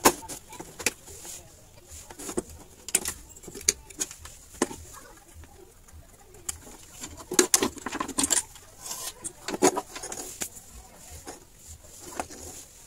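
Irregular clicks, knocks and rattles of a CRT TV's main circuit board and its wire harness being handled and lifted out of the chassis.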